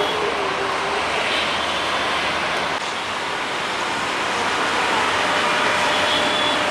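Steady noise of busy city traffic, with a faint held tone for about the first second.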